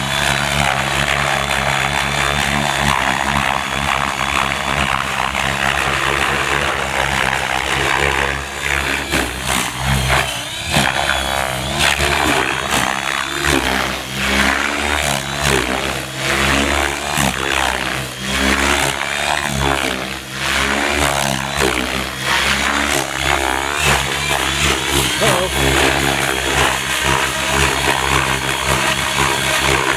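Radio-controlled helicopter flying aerobatics: a continuous hum from the rotor head and motor, its pitch wavering up and down as the blades load and unload through the manoeuvres.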